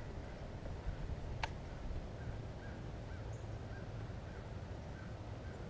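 Distant birds calling in short, repeated notes about every half second, over a low steady rumble. A single sharp click comes about a second and a half in.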